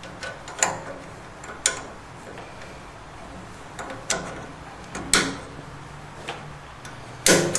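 A handful of sharp, irregularly spaced plastic clicks and knocks as a piezo push-button igniter is fitted onto its mounting bracket on the side of a gas water heater's control valve, the loudest near the end.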